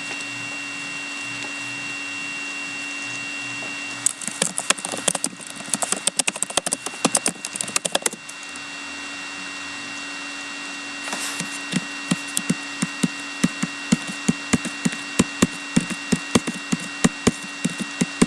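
Sharp clicks and light taps: a dense, irregular flurry for about four seconds, then, after a pause, a regular run of about three clicks a second, over a steady electrical hum.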